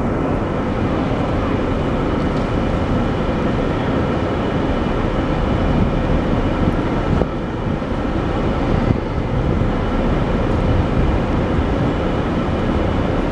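Steady city traffic noise outside a large station: a constant hum with a few faint steady machine tones through it. It drops slightly for a moment about seven seconds in.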